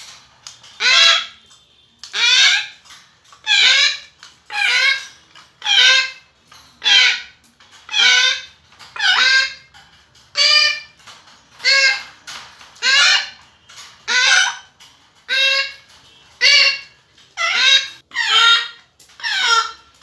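Young African grey parrot giving loud, rhythmic begging calls while being spoon-fed, about one call a second, each rising in pitch.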